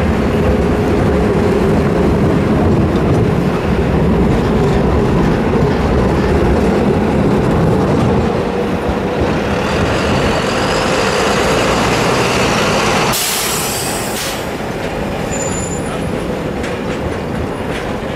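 City traffic at a tram and bus crossing. A tram rumbles past over the rails, then a city bus passes. About 13 seconds in there is a short, loud hiss of air, followed by a few brief high squeals.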